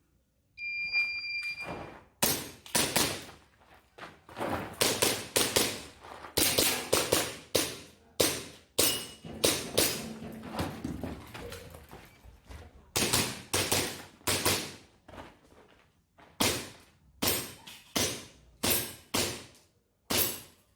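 A shot timer gives one steady beep about half a second in. Then an airsoft pistol fires a long string of shots in quick clusters with short pauses between them, each shot a sharp crack with a short ringing tail, as the BBs strike steel targets.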